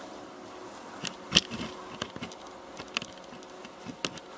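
Several sharp handling clicks and knocks as the camera is moved, the loudest about a second and a half in, over a faint steady hum.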